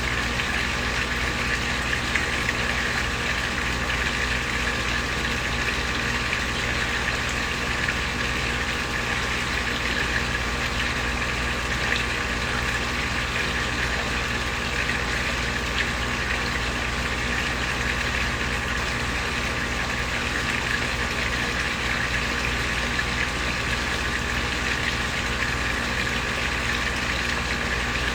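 Koi pond waterfall splashing steadily, with a steady low hum underneath.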